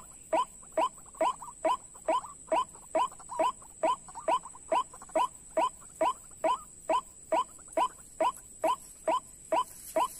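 White-breasted waterhen (ruak-ruak) calling: a fast, even series of short, identical downward-sweeping notes, about two a second.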